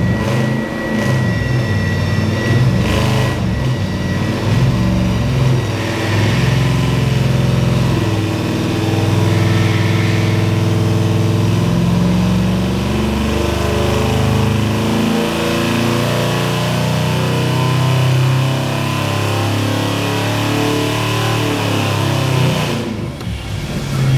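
383 cubic-inch V8 with a multi-port fuel injection system running on an engine dyno during volumetric efficiency calibration, its note shifting in steps as the engine speed is held and changed. The sound drops off briefly near the end.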